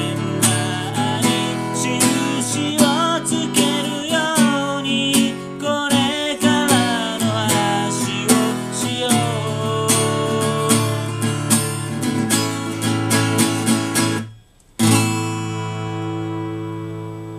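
Acoustic guitar strummed in a steady rhythm under a wavering melody line; about 14 s in the playing stops abruptly, then a last chord is struck and left ringing as it fades.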